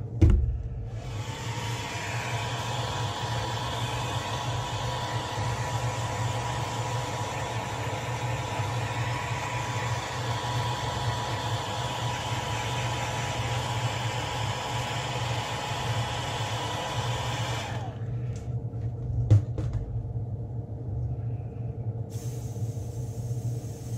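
Handheld hot-air dryer run for about seventeen seconds to flash-dry freshly airbrushed paint: a steady rush of air with a fan whine that rises as it spins up, then cuts off suddenly. An airbrush compressor hums steadily underneath, and a single knock comes shortly after the dryer stops.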